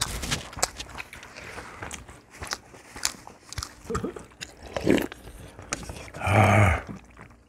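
People eating at a table: chewing and mouth smacking, with chopsticks clicking against dishes and a sip from a cup. Near the end there is a short, louder voice-like sound from one of the eaters.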